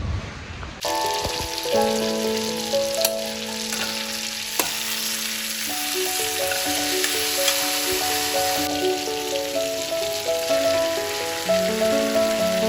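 Food sizzling as it fries in a pan, a steady hiss starting about a second in, under background music of slow, held notes.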